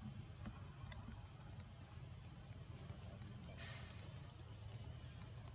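Insects trilling steadily in one continuous high-pitched tone, over a faint low rumble. A brief soft rustle comes a little past halfway.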